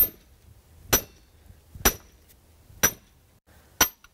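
Hard steel hammer striking the back of a hardened steel hatchet head set on a wooden stump: five sharp metal-on-metal blows about a second apart, each with a short ring. The poll takes the blows without chipping.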